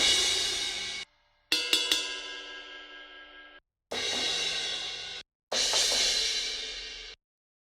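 Sampled cymbals from the EZdrummer 3 Custom Shop drum library, auditioned one at a time: four separate strikes, each ringing for one to two seconds and then cut off sharply. The second is three quick hits in a row with a ringing, bell-like tone.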